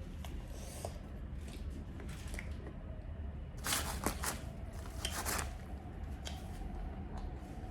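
Close-up eating sounds: small clicks and soft wet mouth noises from chewing, with two louder crinkly, rustling bursts about four and five seconds in.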